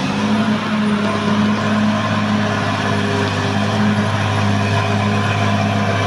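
Caterpillar D6R XL bulldozer's diesel engine running steadily at working revs as the dozer pushes earth with its blade.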